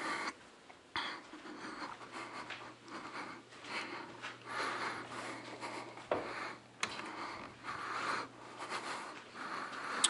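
Faint handling and movement noise from a person walking about a garage: irregular rustles and light scuffs, with two sharp clicks about six and seven seconds in. A low steady hum comes in about a second in.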